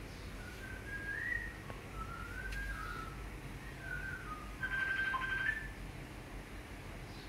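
A string of thin whistled notes sliding up and down. About two-thirds of the way through comes a held, slightly buzzy note that steps up in pitch and ends with a short lower note.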